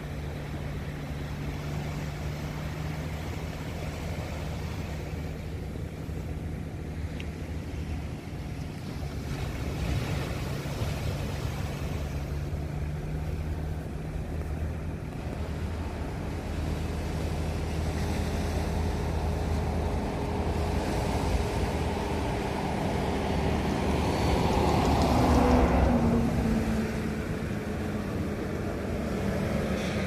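Steady low engine hum over the wash of small waves. Near the end a vehicle passes close by, growing louder for a few seconds, its pitch falling as it goes.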